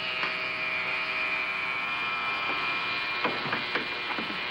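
Electric razor buzzing steadily. A few light knocks come about three and a half seconds in.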